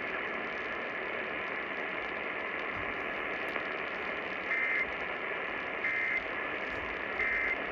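AM radio static hiss, then three short bursts of the Emergency Alert System end-of-message data tone about a second apart, signalling the close of the tornado warning broadcast.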